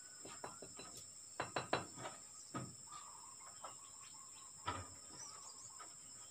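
Scattered light knocks and clatters of brick-wall building work on a wooden scaffold, with a quick run of three sharper knocks about a second and a half in. A steady high insect drone sits behind them, and a bird chirps briefly near the end.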